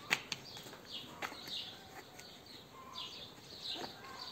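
Plastic soda bottle of liquid drench being shaken and turned in the hands to mix it, with a few sharp knocks of handling, the first and loudest just after the start. Small birds chirp faintly now and then.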